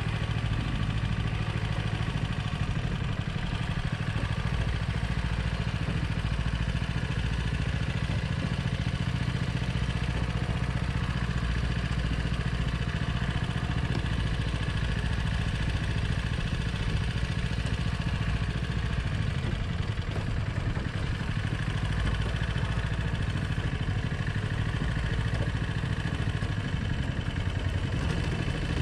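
Single-cylinder 13 hp Predator engine driving a Backwater Swomp Lite longtail mud motor, running steadily under way.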